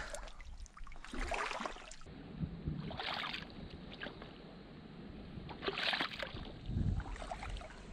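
Shallow seawater in a rocky tide pool sloshing and lapping, with a few brief splashes about one, three and six seconds in.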